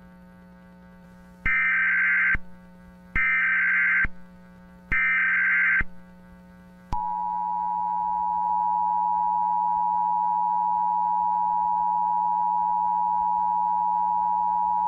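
Emergency Alert System tones: three short bursts of screeching digital header data, each about a second long, then about seven seconds in the steady two-note EAS attention tone begins and holds.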